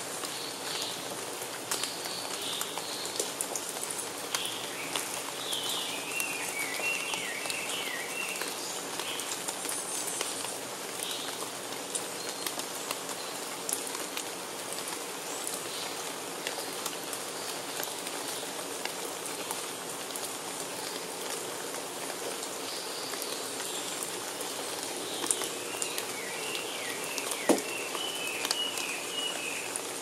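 Steady rain falling on forest foliage, with many separate drips. A wild bird calls in short chirping phrases several seconds in and again near the end, and one sharper drip stands out near the end.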